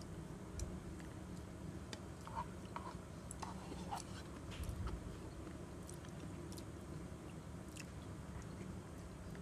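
A person chewing and eating, with scattered small clicks over a steady low hum.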